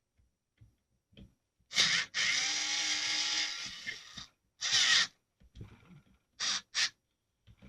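A screw being turned out of the front hinge point of a folding Husqvarna .22 single-shot rifle: bursts of scraping, the longest about two seconds, then several shorter ones.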